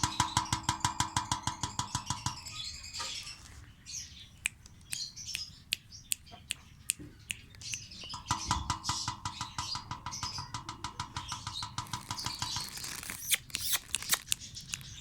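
Pet birds chirping. A background music track with a quick, even beat comes in twice, at the start and again from about eight seconds in.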